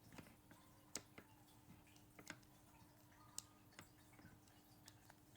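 Faint, scattered small clicks of a Leatherman Wave Plus multitool being handled, about six of them, over near silence.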